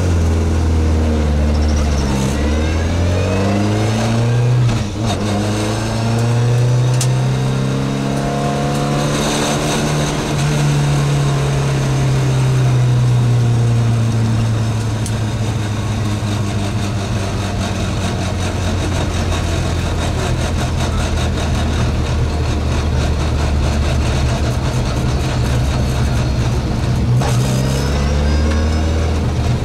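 Rally car engine heard from inside the cabin, revving up through the gears with quick shifts in the first few seconds, then holding high revs and slowly easing off, with the revs dropping sharply near the end.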